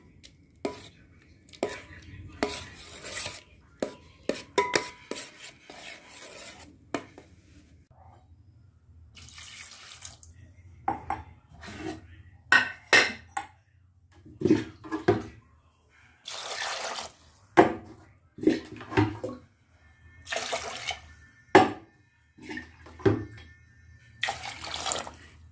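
Buttermilk sloshing and splashing as a steel spoon is swept through it in a steel bowl to gather lumps of freshly churned butter, coming in irregular bursts of about a second. The spoon clinks and scrapes against the bowl now and then.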